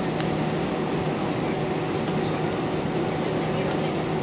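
Airbus A320 cabin noise on the ground after landing: a steady hum and rumble with a few constant low tones, from the idling engines and air-conditioning.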